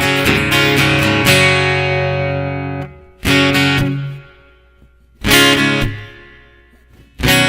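Guitar music, mostly acoustic guitar: strummed chords that ring and slowly fade, with new strums about three seconds in, about five seconds in, and near the end.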